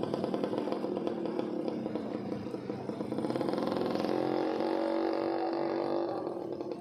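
A small engine running close by, with rapid firing pulses; its note becomes steadier about four seconds in, then fades slightly near the end.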